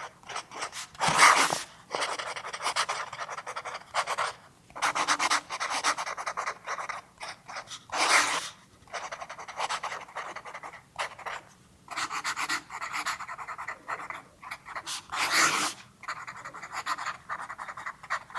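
Writing on paper: a pen or pencil scratching in runs of quick strokes with short pauses, and a few louder scrapes about a second in, near the middle and near the end.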